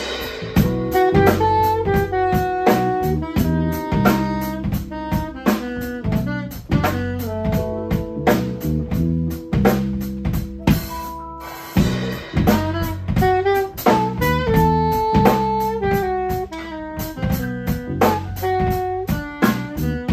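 Small live jazz band: saxophone playing the melody in held and moving notes over Nord Electro keyboard, bass and drum kit, with frequent drum hits.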